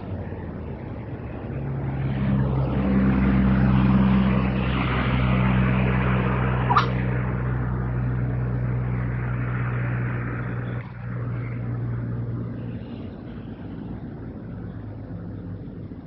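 A motor vehicle's engine runs with a steady low hum, swelling to its loudest a few seconds in and dropping away about eleven seconds in. About seven seconds in, a red wattlebird gives one short, sharp rising call.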